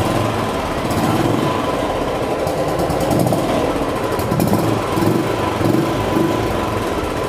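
Royal Enfield single-cylinder motorcycle running steadily through a genuine Royal Enfield accessory silencer, black with a chrome end cap. The exhaust note is a steady low beat with some bass, only a little louder than stock because the silencer has baffles inside and is not free-flow.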